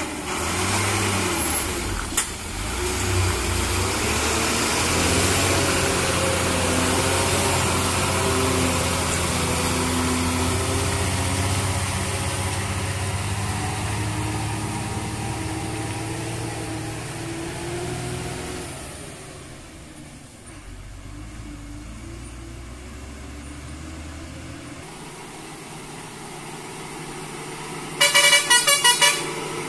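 Heavy goods truck's diesel engine running as it passes, its pitch shifting slowly, then fading away after about 19 seconds to a low hum. Near the end a truck horn sounds in a quick series of short toots lasting about a second.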